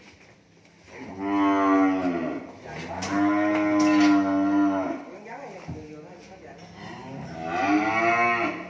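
Cattle mooing: three long, low moos, the first about a second in, the second and longest starting about three seconds in, and a third near the end.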